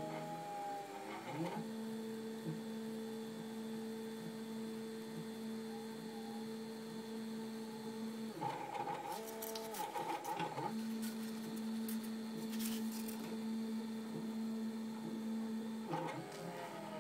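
Stepper motors of a DIY CNC laser cutter's gantry whining steadily as the laser head moves slowly along the cut in 5 mm foamboard. About halfway through, and again near the end, the pitch jumps and glides up and down for a couple of seconds as the head makes quicker moves.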